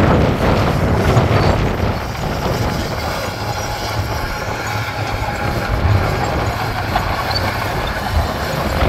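Heavy diesel earthmoving machinery running steadily under load, louder for the first second or two and then even.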